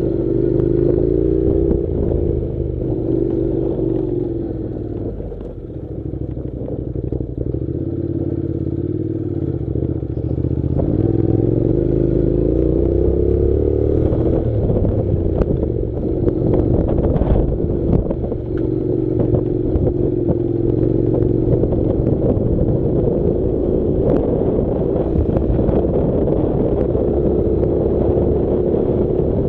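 Honda NC700 motorcycle's 670 cc parallel-twin engine running while riding, its revs rising and falling. Scattered clicks and clatter come in the middle.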